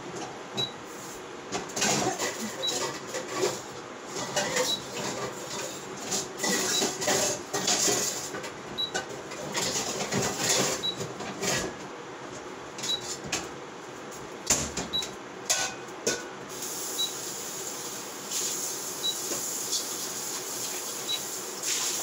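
Kitchen handling sounds: irregular rustling, clatter and knocks as the noodles are got ready for cooking, with a steady hiss setting in about two-thirds of the way through. A faint short beep repeats about every two seconds.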